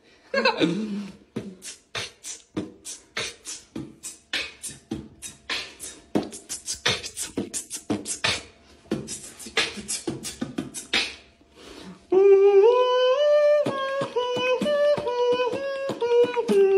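Mouth beatboxing: fast, rhythmic kick-and-snare clicks and hisses for about eleven seconds. After a brief pause, a louder held pitched melody steps up and down over the beat.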